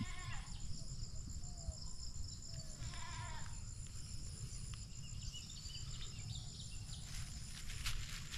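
An animal calling twice, about three seconds apart, each call short with a wavering pitch, over a steady high-pitched insect drone. A brief crackling rustle near the end.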